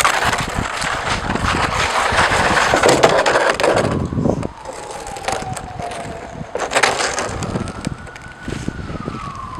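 A hard plastic sled scraping and skidding over an icy asphalt driveway, loudest in the first four seconds, with scattered knocks. Under it a distant siren wails, its single tone slowly falling, rising, then falling again.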